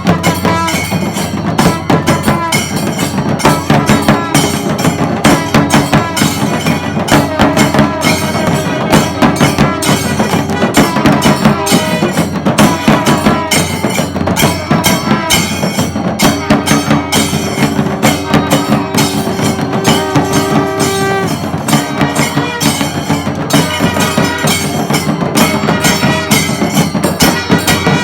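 Kailaya vathiyam temple ensemble playing: a dense, fast, steady beat of drums and hand cymbals, with long held notes running over the rhythm.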